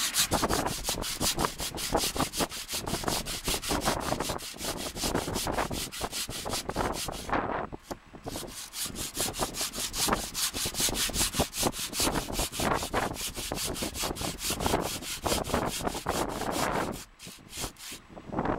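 Hand saw cutting through a weathered stone finial in rapid, steady back-and-forth strokes, rasping on the stone. The sawing breaks off briefly about seven and a half seconds in and again near the end.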